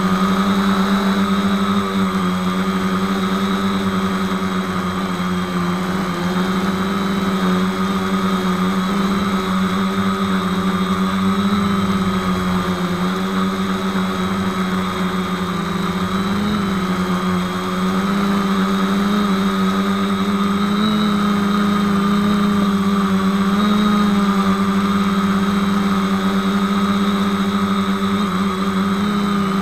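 450-size quadcopter's electric motors and propellers running in flight, heard close up from the keychain camera mounted on the frame: a steady, loud hum with a whine above it, the pitch wavering slightly as the throttle changes.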